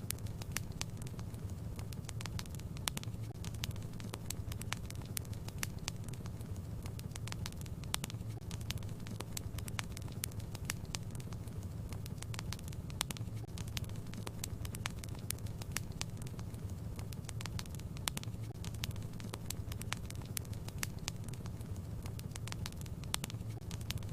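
Wood fire burning in a fireplace, crackling with many quick irregular pops over a steady low rumble.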